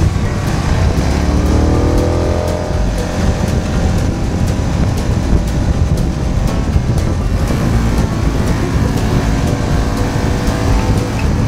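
Motorcycle engine running while riding, under a heavy rumble of wind on the microphone. The engine note climbs as it accelerates between about one and three seconds in, and holds steadier near the end.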